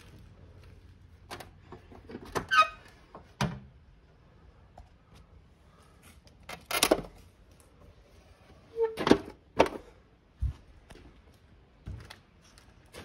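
Clicks, knocks and squeaks from an electrical switchboard being handled: the plastic cover swung open and shut and the air-conditioner circuit breaker switched by hand. The loudest clacks come in two clusters, around the middle and about two-thirds through, with brief squeaks and a couple of dull thumps.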